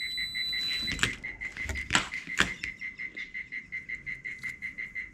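A frog calling in a steady, rapid series of high pulses, about eight a second. A brief high whistle-like tone sounds in the first second, and a few sharp knocks come near the middle.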